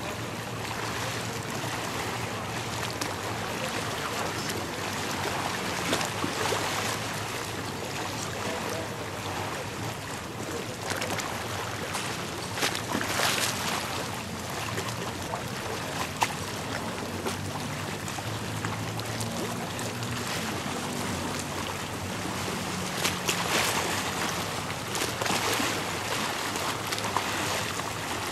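Choppy sea water rushing and splashing against a moving boat, with wind noise and a low, steady motor hum underneath. Louder splashes surge up a few times.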